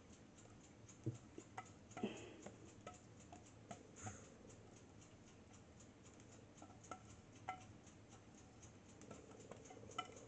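Near silence with faint, scattered light clicks and taps: a wire whisk knocking against a metal mixing bowl as thick chocolate cake batter is poured out into the pan.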